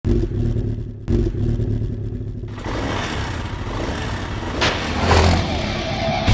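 Motorcycle engine sound effect: it starts abruptly, runs with a steady low throb, briefly drops about a second in, then revs harder and louder through the second half.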